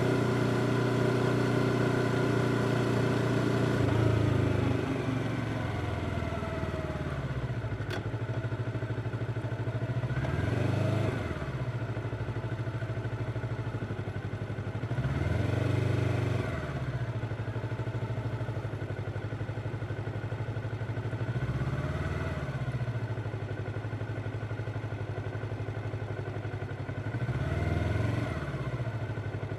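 Yamaha R25 parallel-twin motorcycle engine running at low, fairly steady revs, dropping a little about four seconds in. Brief swells in the sound come and go every few seconds.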